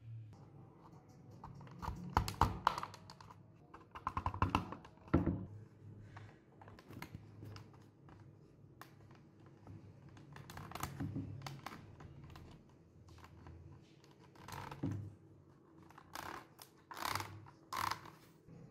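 Plastic parts of a toy cassette recorder being handled and fitted together by hand: irregular clusters of clicks and light rattles, with the loudest bunches a few seconds in and near the end.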